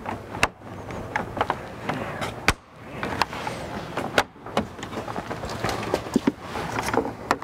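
Irregular sharp clicks and snaps of plastic trim clips as a pick tool pries at them along the edge of a truck grille. The loudest snap comes about two and a half seconds in.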